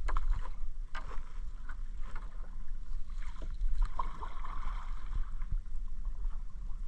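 Wet fishing net being hauled hand over hand out of the sea into an outrigger canoe: water splashing and dripping off the mesh, with scattered light knocks and a steady low rumble underneath.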